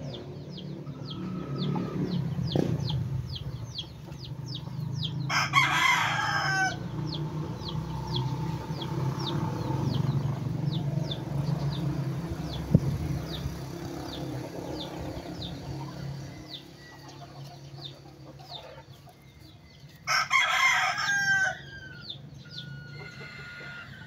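A rooster crowing twice, about fifteen seconds apart, each crow about a second and a half long. Under it runs a string of quick high chirps, about three a second, that stops about two thirds of the way through, and a low steady rumble.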